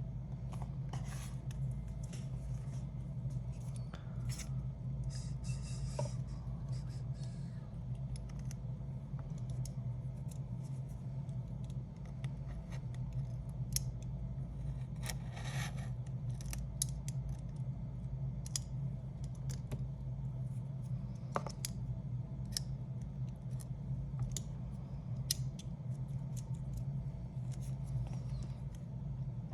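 Small repair tools scraping, ticking and clicking against an opened iPad, with a few longer scrapes, over a steady low hum.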